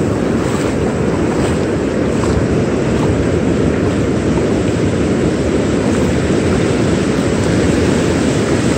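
Steady, loud rumble of wind on the microphone mixed with breaking surf.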